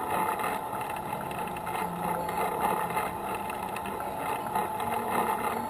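Motorcycle engine running steadily while the bike rolls slowly.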